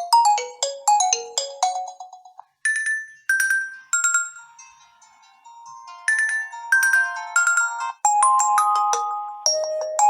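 Preset ringtones of a Nokia 1 Plus smartphone playing through its loudspeaker: melodies of separate chiming notes that each fade after they sound. About eight seconds in, the tune breaks off and a new one starts.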